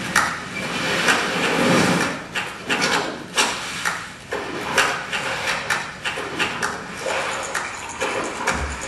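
Soundtrack of a promotional film playing over a hall's loudspeakers: a run of irregular knocks and clicks over a hazy background, with a brief swell about two seconds in.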